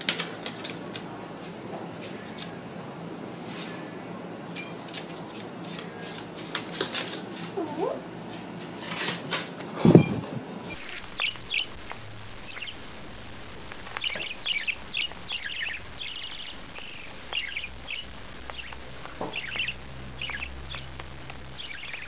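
A small white parrot chirping in short, high bursts, several at a time, through the second half. Before that come a run of sharp clicks and taps and one loud thump about ten seconds in.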